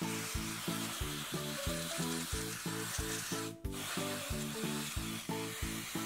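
Can of freeze spray hissing steadily through a thin straw nozzle, cutting out briefly a little past halfway, over background music with a steady, bouncy beat.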